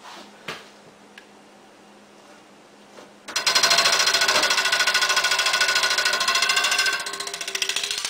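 Spring-wound mechanical alarm bell held under water in a sink, its striker hammering the gong very rapidly in a continuous ring that starts about three seconds in and eases slightly near the end. A few small clicks and splashes come before it.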